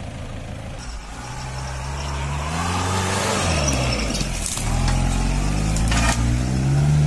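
4x4 jeep engine revving under load as the jeep drives through loose sand. The revs climb about a second in, drop briefly around the middle, then climb again and hold, loudest near the end.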